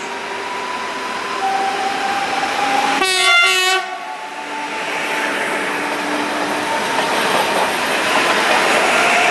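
PESA Elf EN76 electric multiple unit pulling away on a loud departure. Its traction motors whine, rising in pitch in steps. A single short horn blast about three seconds in is the loudest sound. The rush of wheels on rails grows as the train passes close by.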